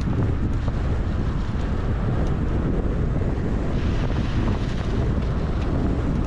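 Wind rushing over the microphone of a camera on a moving car, mixed with the car's road noise: a steady, heavy rumble with a hiss above it.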